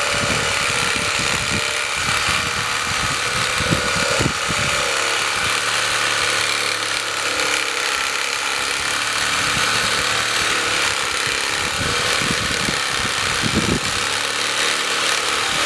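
Reciprocating saw with a Diablo 9-inch pruning blade cutting through a wet, green apple branch. The motor runs steadily throughout, with uneven knocking from the blade's strokes in the wood at the start and again near the end.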